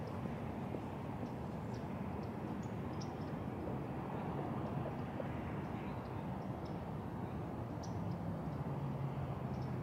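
Open-air ambience: a steady low rumble with a faint hum of distant traffic that grows a little stronger near the end, and a few short, faint, high bird chirps.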